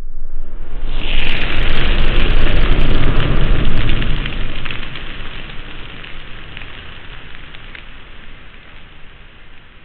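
Cinematic title-reveal sound effect: a swell of noise with a deep rumble and crackling, loudest about one to four seconds in, then slowly fading away.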